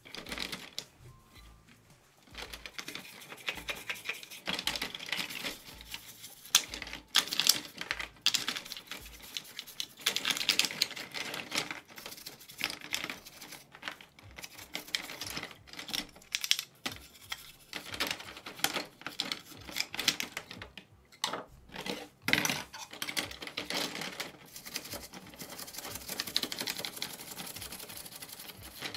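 Stiff brush scrubbing the soapy, grimy parts of a die-cast model car, rapid scratching strokes in bouts with a few short pauses, getting going about two seconds in.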